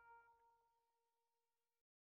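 Near silence: the last faint held notes of the intro music die away, then nothing.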